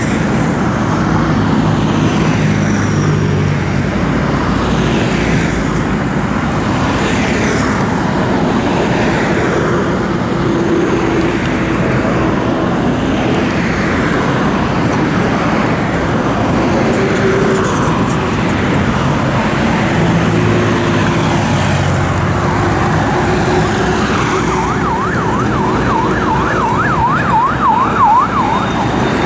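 Heavy road traffic: cars, pickups, trucks and motorbikes passing one after another, each pass falling in pitch as it goes by. Near the end a siren joins in, yelping quickly up and down, about three cycles a second.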